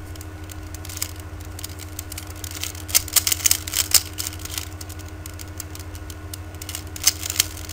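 Rubik's cube being turned quickly by hand, its plastic layers clicking and clattering in rapid flurries, densest about three seconds in and again near the end. A steady low electrical hum runs underneath.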